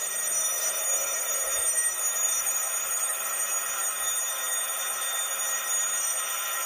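Homemade battery-powered doorbell ringing steadily and without a break while its button is pressed.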